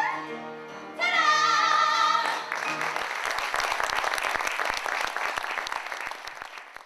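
A woman's voice holds a final sung note with vibrato over a sustained chord from the stage band, ending about two and a half seconds in. Audience applause follows and fades out near the end.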